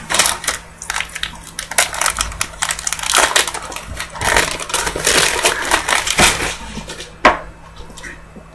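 Foil trading-card pack wrapper crinkling as it is torn open and handled, a dense run of crackles, then quieter handling of the card stack with one sharp click about seven seconds in.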